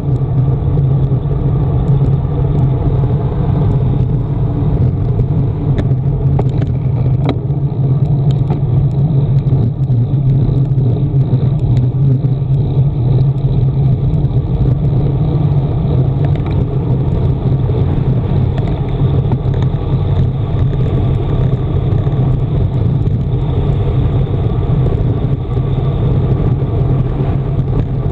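Steady wind noise buffeting the microphone of a handlebar-mounted camera on a road bike descending at speed, mixed with the hum of tyres on asphalt. A few faint clicks come about six to seven seconds in.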